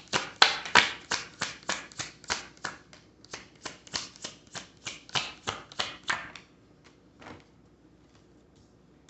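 Oracle card deck being shuffled by hand: a quick, even run of card slaps, about three a second, that stops about six seconds in. A few faint single taps follow.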